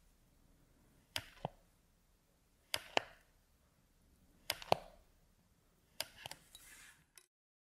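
Blade slicing thin slices off a polymer clay cane and clicking down onto the tile, about every one and a half seconds, mostly two sharp clicks each time.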